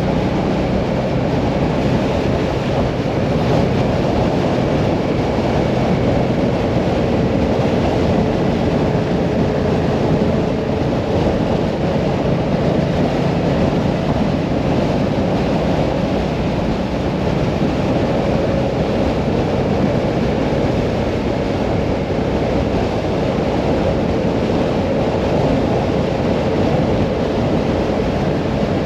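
Mirage 650 motorcycle cruising at steady road speed, the engine drone held even under a heavy rush of wind on the microphone.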